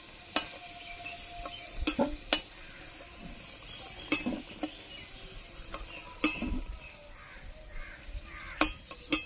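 A metal utensil clinking and scraping against a cooking pan in about ten separate sharp strikes, as fried potatoes are lifted out of the oil.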